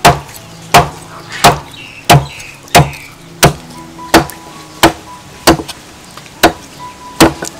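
Meat cleaver chopping a whole fish into steaks on a wooden chopping block: about eleven sharp, evenly paced strikes, roughly one every 0.7 seconds.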